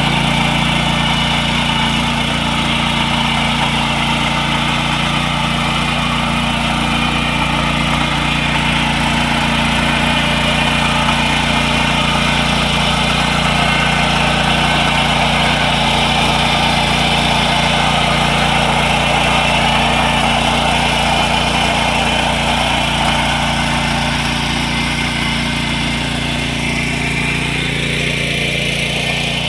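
Small engine of a power weeder running steadily as it tills mud. Over the last few seconds a rising whine creeps up in pitch.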